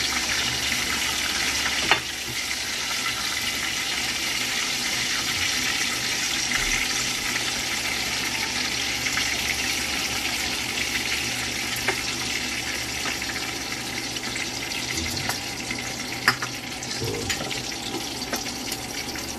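Chicken pieces frying in hot oil in a pan: a steady sizzle, with a couple of sharp clicks of a metal spatula against the pan.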